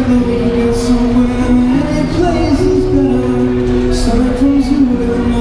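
Man singing a slow melody of long held notes into a microphone while strumming an acoustic guitar, both amplified through a small battery-powered street amp.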